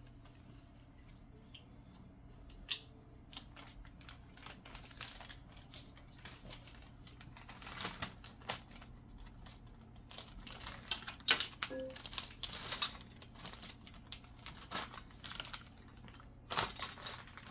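Clear plastic bags crinkling, with small clicks and taps as lenses and safety frames are handled. It is sparse at first and grows busier about halfway through, over a faint steady hum.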